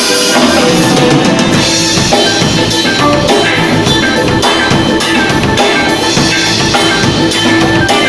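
Live band playing at a sound check, a full drum kit driving the beat with kick and snare strikes over steady instrumental backing.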